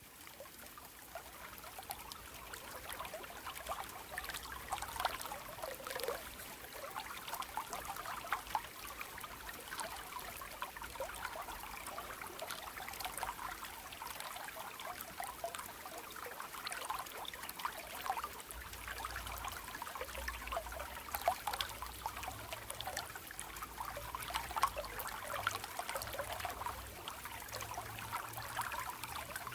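Small stream flowing gently over stones, a steady trickling and babbling with many small splashes.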